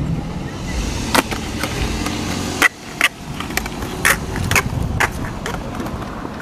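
Skateboard rolling over a tiled sidewalk, with several sharp clicks.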